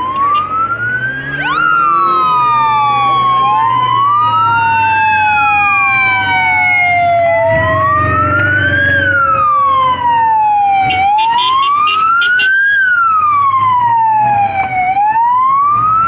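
Motorcade escort sirens wailing, the pitch rising and falling about every four seconds. A second siren slides slowly down in pitch over several seconds, and a brief rapid warble sounds partway through.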